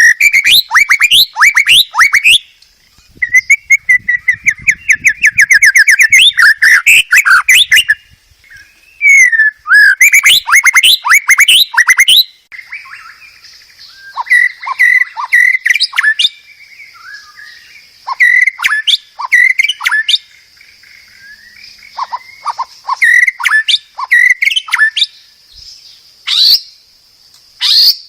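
White-rumped shama singing a loud, varied song of rapid trills and quickly repeated whistled notes, packed densely for the first half and then in more spaced phrases. A steady faint high hiss sits behind the song from about halfway.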